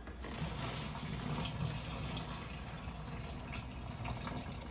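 Cooking liquid from a baking sheet of roasted chicken pouring and dripping steadily into a plastic bag in a sink.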